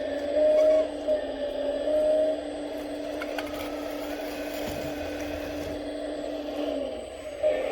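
Hydraulic pump of a 1/14-scale Volvo 360 RC excavator whining steadily, growing louder for brief moments about half a second in, around two seconds in, and near the end.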